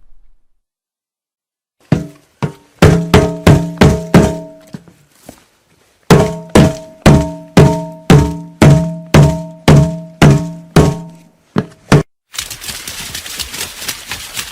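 A hollow, resonant object struck over and over, each thunk ringing briefly with a low pitched tone, about two hits a second in two runs with a short pause between. Near the end a different sound takes over: a dense crackling rustle of many fast little clicks.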